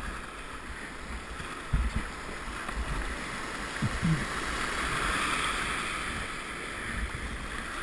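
River rapids rushing past a kayak, the rush swelling about two-thirds of the way through, with a few low thumps of wind and handling on the microphone.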